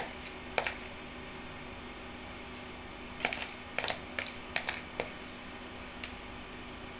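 Metal spoon clicking and scraping against plastic cups and a plastic bowl as soft ice cream is scooped and packed into small containers: one click about half a second in, then a quick run of clicks between about three and five seconds in, over a faint steady hum.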